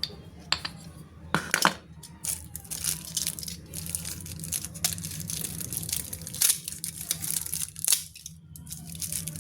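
Packaging being torn open and crumpled by hand: a dense run of crinkling and tearing crackles with a few sharper cracks, starting about a second and a half in.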